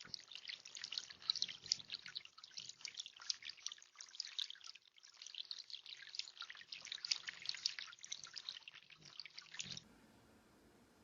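Faint trickling and dripping of water from a small bird-bath fountain, splashing steadily and irregularly, then cutting off suddenly near the end.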